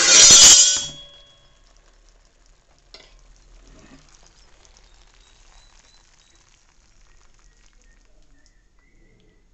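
Metal spoon stirring and scraping thick, finished cornflour halwa in a hot pan, loud for about the first second. After that, only faint crackling from the pan.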